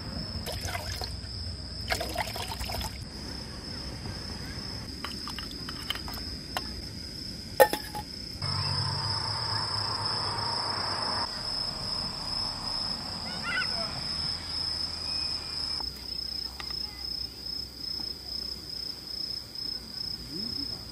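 Crickets chirring steadily in the night, with a few sharp clinks of camp cookware.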